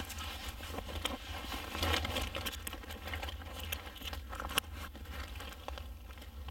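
Fabric boot gaiter being handled and fitted over a leather hiking boot: rustling cloth and a run of small irregular clicks as its strap and buckle are worked around the boot.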